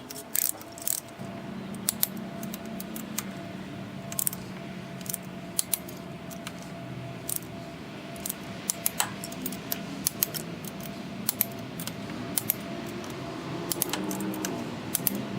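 Torque wrench ratcheting and clinking as the cylinder-head bolts are tightened: irregular sharp metallic clicks, some in quick clusters, over a faint steady hum.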